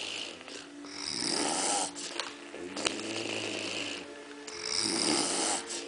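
A person snoring in their sleep: slow, rasping snore breaths with a pitched drone, loudest about a second in and again around five seconds in.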